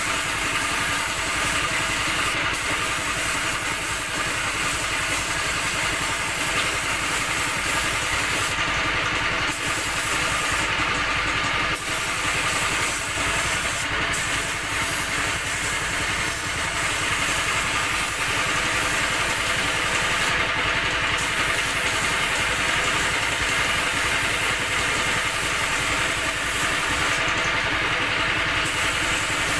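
Air compressor running steadily, with a hiss whose highest part drops away briefly a few times.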